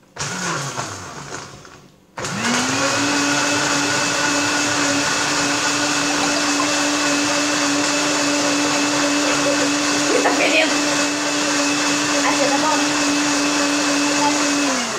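Electric countertop blender running on a liquid smoothie mix: a short burst that winds down, then switched on again about two seconds in, spinning up to a steady whir that holds until it is switched off near the end and winds down.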